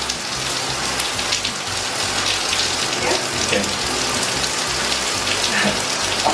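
Bathtub faucet running, a steady rush of water splashing into the tub.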